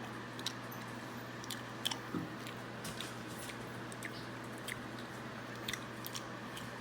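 A person chewing a mouthful of fast food, with scattered small crunches and wet mouth clicks over a steady low hum.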